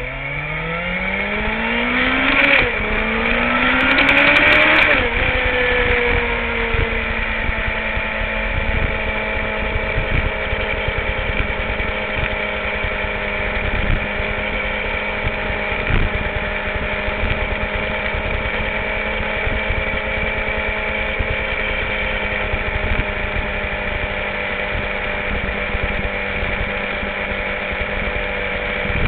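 Sport motorcycle accelerating hard. The engine pitch climbs, drops at an upshift about two and a half seconds in, and climbs again. About five seconds in it eases off and settles into a steady cruise, with wind rush, heard from a camera mounted on the bike's tail.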